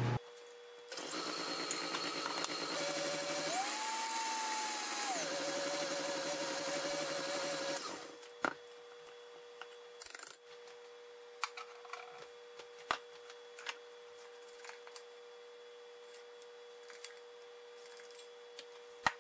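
KitchenAid Classic Plus stand mixer running with its wire whisk, whipping heavy cream and sugar into whipped cream, with a whine that rises briefly near the middle; it stops after about eight seconds. Then come light clicks and clinks of the whisk and metal bowl being handled, over a faint steady hum.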